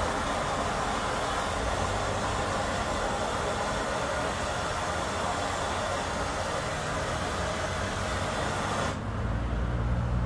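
Handheld gas torch burning with a steady hiss as its flame scorches plywood. The hiss cuts off suddenly about nine seconds in, leaving a low steady hum.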